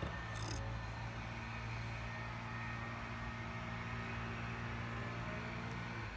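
An engine running steadily at an even pitch, holding one speed throughout.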